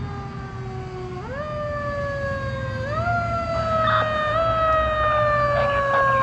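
Fire apparatus siren, its wail rising sharply three times and gliding slowly down in pitch between the rises.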